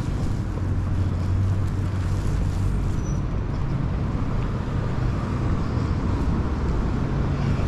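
Steady low engine hum with road noise.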